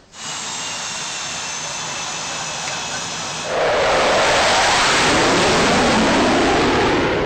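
CF-18 Hornet's twin jet engines running: a steady jet whine with faint high tones, then, about three and a half seconds in, a sudden step to a much louder rushing noise whose pitch falls.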